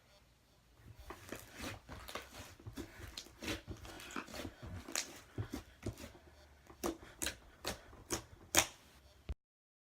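Black butter slime being squished and poked by hand, giving a run of sticky clicks and small pops, several a second. They start about a second in, grow sharper and louder in the second half, and cut off suddenly near the end.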